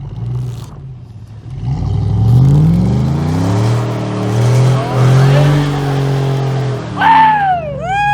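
Pickup truck engine revving up hard and held at high revs for several seconds, with a rushing hiss above it, as a truck stuck in deep snow is worked free, then the revs dropping. Near the end, two high cries, each rising and then falling.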